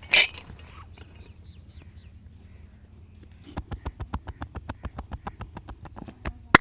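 A short loud rushing burst at the start. From about three and a half seconds, a fast run of sharp slaps and taps, about five a second, from the masseur's hands striking the head in a percussive head massage, with one much louder crack near the end.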